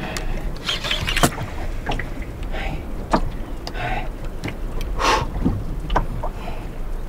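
Water slapping and splashing against the hull of a small boat in irregular short bursts, over a low steady rumble.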